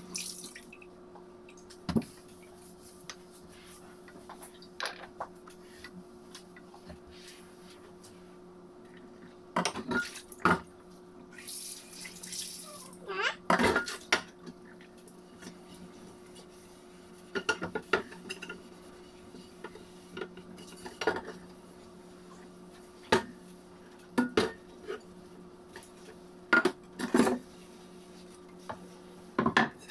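Dishes and cutlery clinking and clattering in scattered knocks as they are handled on a kitchen counter, over a steady low hum. There is a brief hiss about 12 seconds in.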